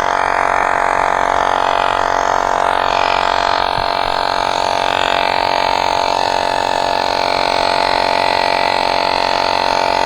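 Small electric air compressor running steadily with a buzzing drone while it inflates an e-bike tire.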